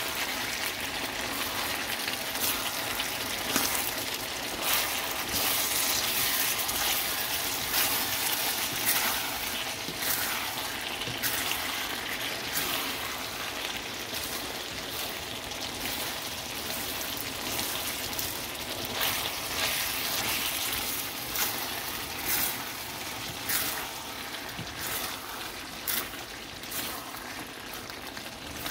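Food frying in a pan: a steady sizzle with frequent sharp pops and crackles.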